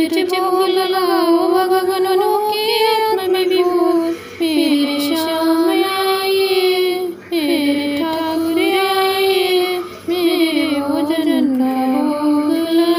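A woman singing a Hindi devotional bhajan in a high voice, in sung phrases of a few seconds separated by short breath pauses.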